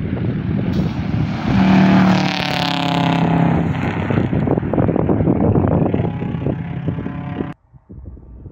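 Rally car passing at speed on a gravel stage, its engine loudest about two seconds in and its note dropping as it goes by, with a dense crackle of gravel under the tyres. Near the end the sound cuts abruptly to a much quieter, distant car.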